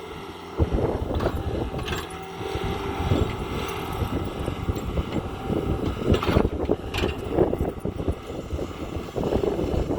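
Powered auger running as it drills a pier hole, with a steady motor hum and irregular knocks and rattles.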